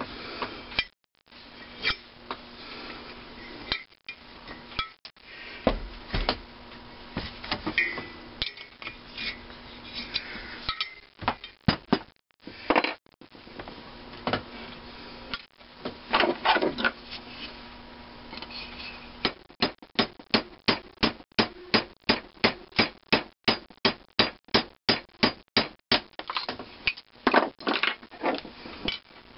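Hammer tapping on a steel rod, driving a sizing ball through a thin-wall bronze valve guide liner to open it up for a valve that is too tight. A quick, even run of taps, about four or five a second, lasts several seconds past the middle, among scattered clinks and knocks of metal parts being handled.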